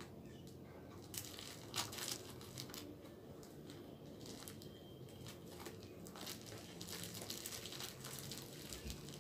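Plastic bubble wrap crinkling and rustling faintly as it is handled and cut open with scissors, with a few sharper clicks in the first two seconds.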